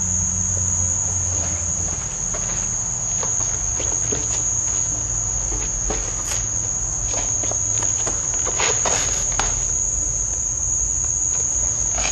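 Crickets trilling steadily as one continuous high-pitched tone, with scattered faint clicks and knocks underneath.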